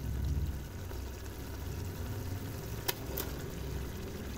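Tomato-onion masala simmering in an aluminium pot on the stove, a steady low rumble. Two sharp clicks close together about three seconds in, as raw chicken pieces go into the pot.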